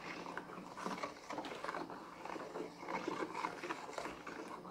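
A thin stream of water trickling from a plastic jug into a bowl of foamy detergent solution while a plastic stick stirs it, giving a wet, bubbly crackle of small irregular splashes.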